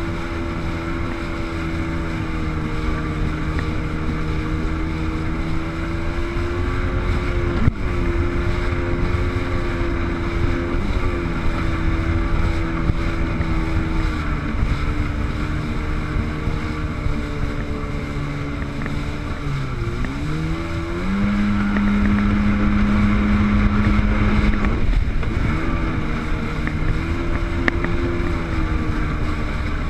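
Sea-Doo jet ski engine running under way, its note shifting with the throttle: about two-thirds of the way through it dips briefly, then climbs to a higher, louder steady note for a few seconds before easing back.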